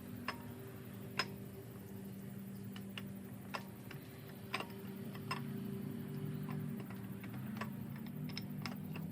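Irregular light metallic clicks and taps of hand tools and parts being handled during an LS1 V8 engine teardown, over a steady low hum.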